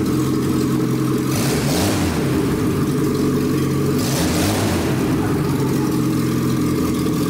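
Car engine running with its crankshaft counterweights and webbing cut off and its oil pan removed, idling steadily. It revs up briefly twice, about a second and a half in and again about four seconds in.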